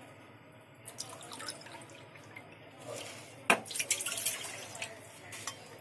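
Water being poured into a cooking pan, splashing and trickling, with a sharp click about three and a half seconds in.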